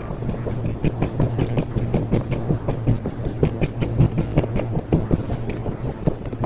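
Electric ride-on toy motorbike rolling across a tiled floor: a steady low motor hum under a rapid, irregular clatter of its hard wheels over the tiles.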